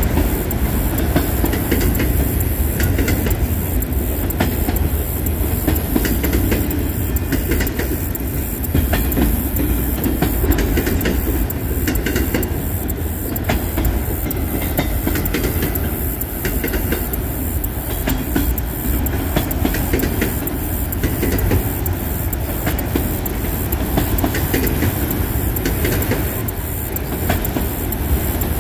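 Freight train's autorack cars rolling past, steel wheels clacking on the rails over a steady low rumble.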